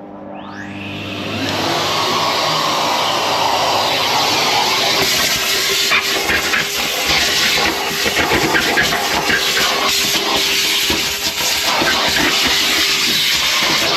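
Vacuum cleaner switched on, its motor whining up to speed over the first two seconds, then running steadily with a loud hiss of suction and an uneven scraping crackle as the nozzle works over the car's interior.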